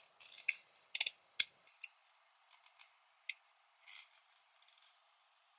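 Light, sharp clicks and taps of hard plastic being handled, a quick cluster in the first two seconds and a few sparse ones after: a remote control being fitted into a 3D-printed plastic remote holder.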